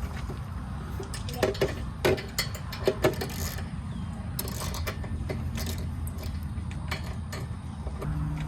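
Metal tools and parts clinking and knocking as a mini bike is put together, with several sharp clinks between about one and a half and three seconds in, over a steady low rumble.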